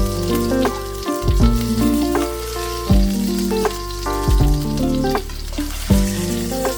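Food frying in hot oil in a pan, a steady sizzle, under background music with a bass line and changing notes.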